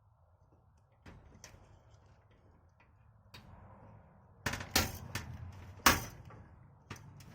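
Handling noise of computer hardware being worked out by hand: scattered light clicks, then sharper knocks and clatters from about four and a half seconds in, the loudest near six seconds.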